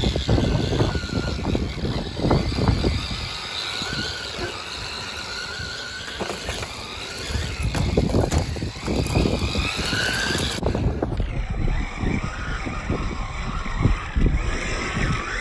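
Brushless electric motor of a 1/10-scale Losi Baja Rey RC truck whining up and down in pitch with throttle, over the rough rumble of its tyres and suspension on grass and gravel.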